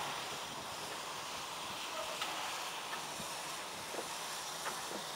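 Small steam tank locomotive moving slowly, giving a steady hiss of steam with a few light clicks.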